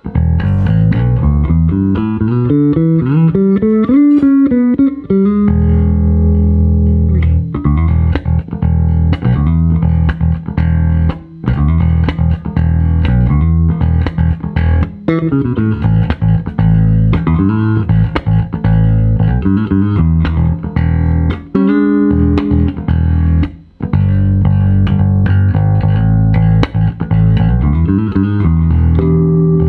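Provision VJB-GIB-RELIC electric bass guitar played solo. A quick rising run of notes in the first five seconds, then low plucked notes and riffs.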